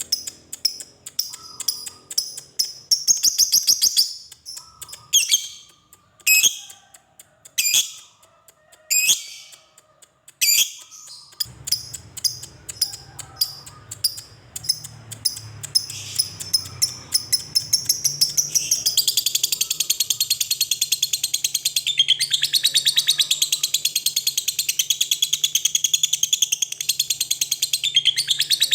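Lovebird chattering: short bursts of rapid high chirps with gaps between them, then from about two-thirds of the way through a long unbroken chattering trill, the 'ngekek panjang' (long ngekek) song.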